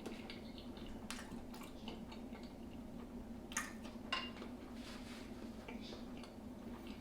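Close-miked eating sounds from a seafood boil: wet squishing and smacking with scattered sharp clicks of shell or utensils, two louder ones a little after halfway, over a low steady hum.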